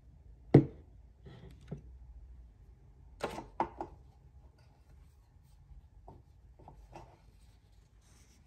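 Hard plastic handling knocks and clicks. There is a sharp knock about half a second in, then a quick run of clicks around three seconds in as the lid of a clear acrylic cotton-pad jar is lifted, and a few fainter taps later.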